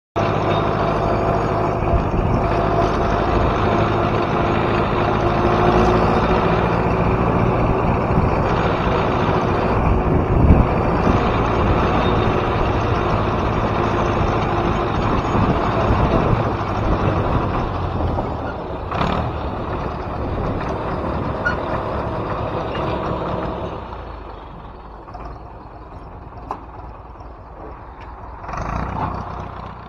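Ursus C-355 tractor's two-cylinder diesel engine running steadily under load while towing a trailer, with a few knocks. About three-quarters of the way through it eases off and gets quieter.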